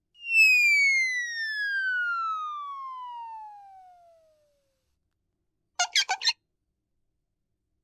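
Cartoon falling-whistle sound effect: a single whistle tone gliding steadily down from high to low over about four seconds, fading as it drops. About six seconds in comes a short rattling burst of four quick noisy hits.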